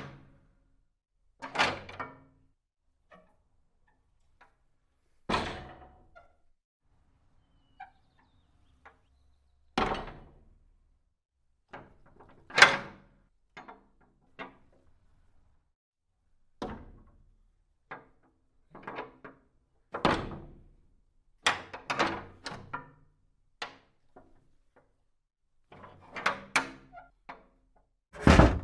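Heavy iron doors banging shut and clanking, one after another: about a dozen separate sharp hits, each with a short ring-out, some coming as quick runs of rattling clanks.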